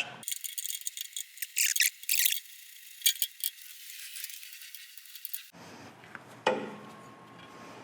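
Small metal parts clinking and rattling as they are handled, heard thin with the low end cut out for about five seconds. Then steady fan noise takes over, with one knock.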